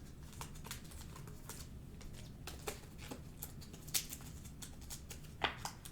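Faint, scattered clicks and light rustles of trading cards being handled and sorted by hand.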